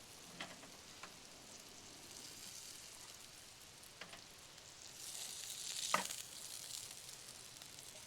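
Small smoked sausages sizzling in a frying pan, a steady hiss that swells louder around five to six seconds in. A few light clicks or knocks come over it, the sharpest about six seconds in.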